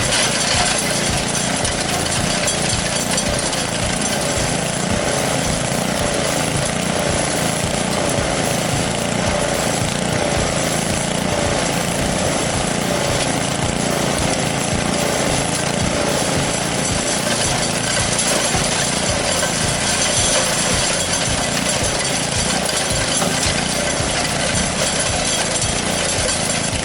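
Roto-Hoe chipper shredder running, a steady dense mechanical noise that holds without a break as it chews through branches and brush.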